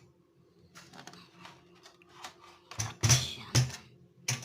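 Hard plastic vacuum cleaner parts and packaging being handled: quiet at first, then a run of sharp clicks and knocks in the last second and a half.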